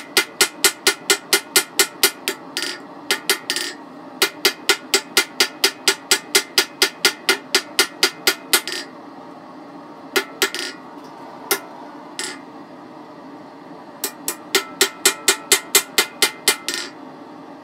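Hand hammer striking red-hot coil-spring steel on an anvil, drawing the bar out on the square, in quick runs of about four blows a second. The blows stop for several seconds past the middle with only a few single strikes, then a fast run starts again near the end.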